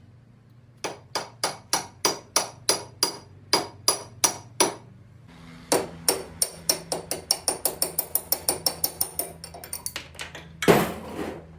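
Hammer blows on metal: a steady run of about a dozen strikes, then after a short pause a faster run that speeds up, followed by a brief noisy burst near the end.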